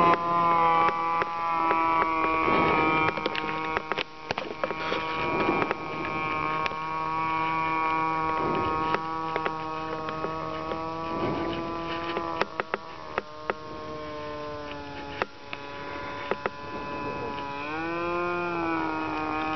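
Engine of a radio-controlled P-51 Mustang model flying overhead, a steady buzzing drone. Its pitch dips and comes back up near the end, and a few sharp clicks sound over it.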